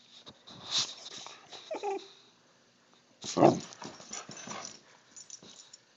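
Boxer dog playing on a bed, making short breathy vocal noises: a brief whine about two seconds in and a louder grunt-like burst about three and a half seconds in, with bedding rustling as it paws the blanket.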